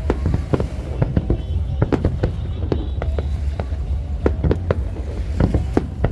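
Aerial fireworks bursting in quick, irregular succession: many sharp bangs and cracks, several a second, over a steady low rumble.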